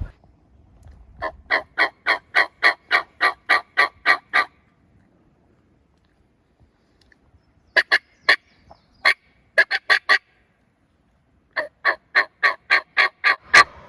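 Turkey yelping: three runs of short, evenly spaced yelps, about three or four a second and eight to eleven to a run, with pauses between the runs.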